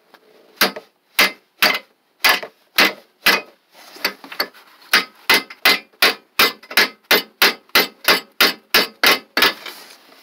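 A steel wrench used as a hammer, tapping a retaining clip onto the edge of a radiator: a long run of sharp metallic taps, about two a second at first and quickening to about three a second.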